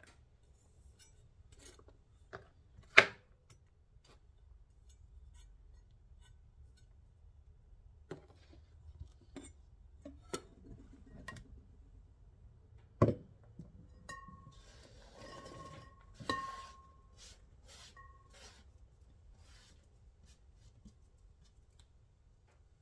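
Kitchen handling sounds: scattered knocks and taps of a knife on a plastic cutting board, then, a little past halfway, a glass mixing bowl knocked down on the counter and clinked several times so that it rings in a clear tone.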